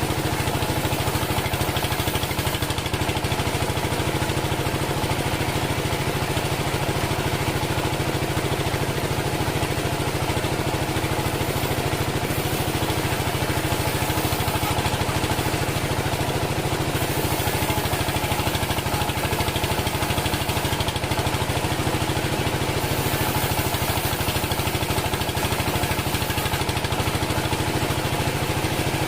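Engine of a homemade bandsaw sawmill running steadily at an even speed.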